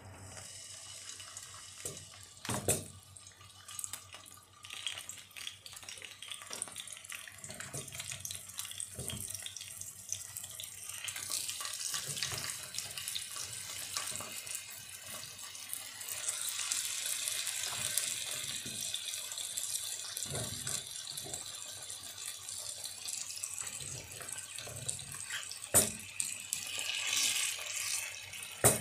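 Hot oil sizzling in a cast iron skillet as raw potato slices are laid in, the sizzle growing louder about halfway through as more slices go in, with a few sharp knocks of slices and utensils against the pan.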